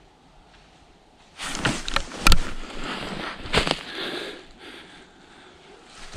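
Close handling and rustling noise as the muzzleloader and the hunter's gear are moved about, with several sharp knocks. The loudest knock comes a little over two seconds in, and the sound settles down after about four and a half seconds.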